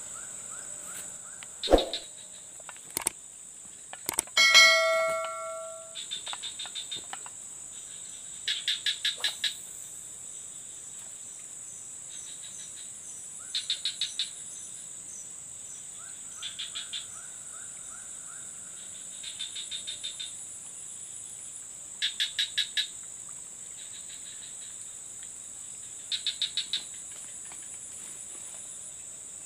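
Steady high-pitched drone of crickets and other insects. Every few seconds comes a short burst of rapid even chirps. A sharp click about two seconds in and a brief ringing tone around five seconds in are the loudest sounds.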